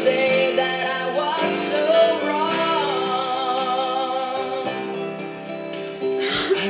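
Music: a slow song with a sung melody of long, wavering held notes over guitar accompaniment, with a brief hiss-like burst near the end.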